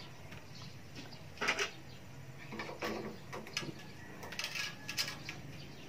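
Faint, scattered knocks and clinks of kitchen things being handled on a table: dishes, utensils and a cutting board set down and moved.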